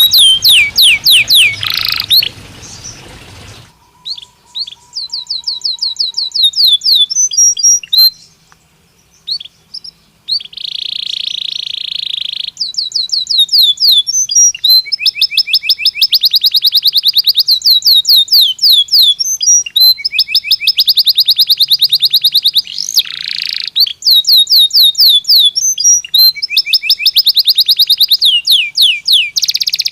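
Belgian canary singing: long runs of fast, high repeated trills, broken by two short pauses and a buzzy rolled note near the middle.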